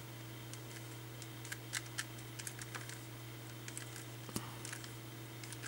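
A 3x3 Rubik's cube being turned by hand through a move sequence: a run of light plastic clicks as its layers turn, several a second and irregularly spaced, over a faint steady hum.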